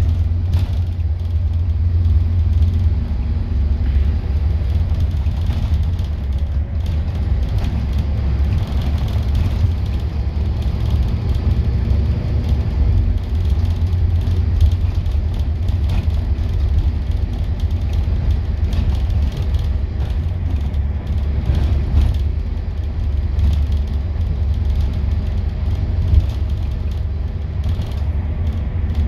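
Scania N230UD Enviro400 double-decker bus under way, heard from the upper deck: a steady low rumble of its five-cylinder diesel engine and the road. A few light knocks and rattles sound now and then, the sharpest about 26 seconds in.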